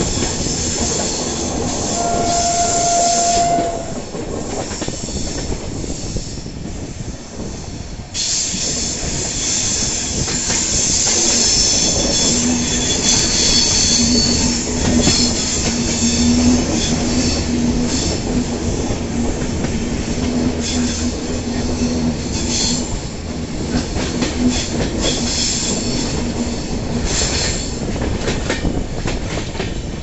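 Passenger train running on the track, heard from an open coach window: a steady rumble and rush of wheels on rail with stretches of high wheel squeal, typical of wheels grinding through curves. It goes quieter for a few seconds about four seconds in.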